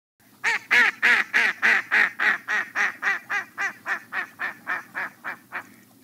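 Duck quacking in one long laughing run of about twenty quacks, some four a second, growing fainter toward the end.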